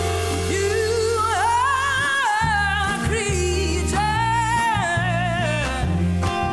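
Live band music: a singer holds long notes with a wavering vibrato over bass guitar and drums.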